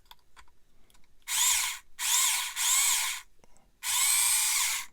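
Small electric drill boring a hole through a plastic model-kit part, run in four short bursts, its whine rising and falling as the motor spins up and slows each time.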